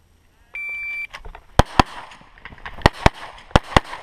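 Electronic shot timer gives its start beep, one steady high tone of about half a second. A pistol then fires six shots as three quick double taps, about a second between pairs.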